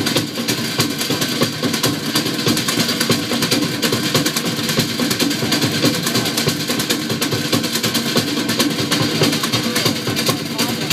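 Drums played in a fast, steady rhythm to accompany a fire knife dance.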